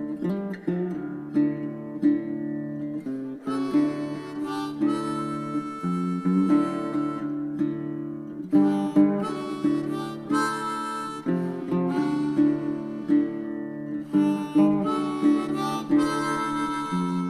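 Background music: a harmonica playing held, changing notes over plucked acoustic guitar.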